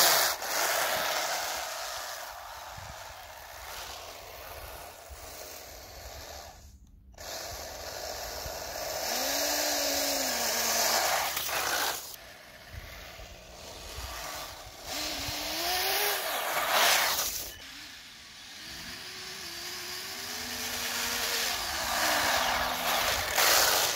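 RC snowmobile driving over packed snow: its electric motor whines, rising and falling in pitch with the throttle several times, over a steady rushing noise from the track churning the snow.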